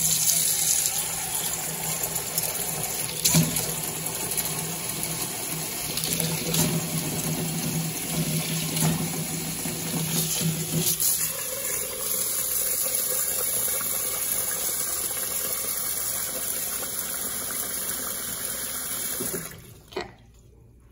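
Kitchen tap water running steadily into a rice cooker's inner pot of white rice, filling it for a final rinse, with a few faint knocks against the pot. The water shuts off about a second before the end.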